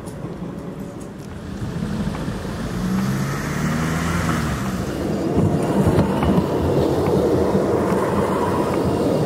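DVB low-floor articulated tram passing close. Its motor hum of a few steady low tones rises about three seconds in, then gives way to a louder, rougher rumble of the wheels on the rails as the cars roll by.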